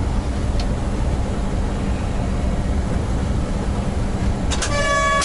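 Steady low rumble and running noise inside the cab of a ChS200 high-speed electric locomotive on the move. Near the end a short pitched tone sounds, cut off by a brief burst of noise.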